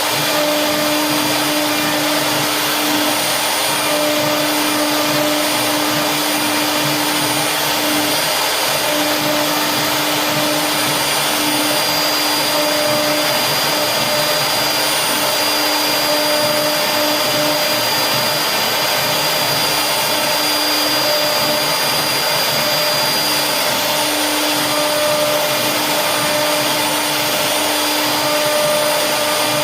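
CNC router spindle running steadily while carving wood: an even hum over a hiss of cutting.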